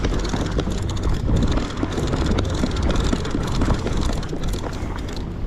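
Fishing boat's engine running with a steady low rumble, mixed with wind buffeting the microphone and sea noise.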